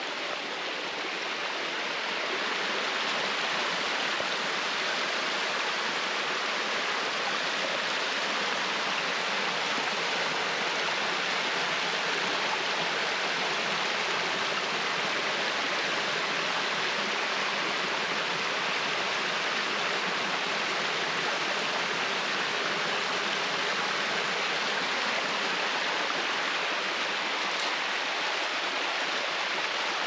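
Running water of a small mountain stream rushing over rocks: a steady hiss that grows a little louder in the first couple of seconds, then holds even.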